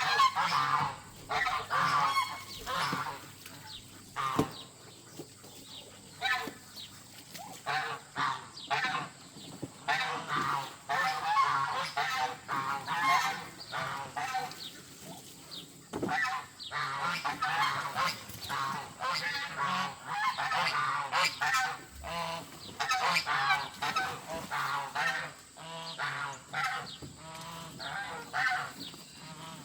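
Several domestic geese honking and calling on and off, the calls often overlapping.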